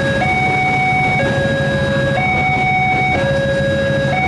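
Railway level-crossing warning alarm sounding an electronic two-tone signal, alternating between a lower and a higher note about once a second. Underneath is the steady rumble of an electric commuter train passing.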